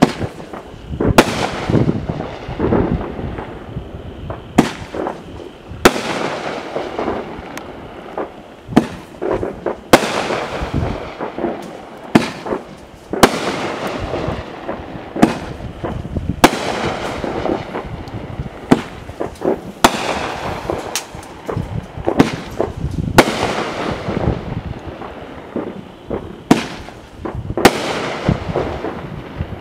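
Machine Made War Horse 9-shot mold fireworks cake firing: a long series of sharp, loud reports every second or two as shells launch and break overhead, with dense crackling in between.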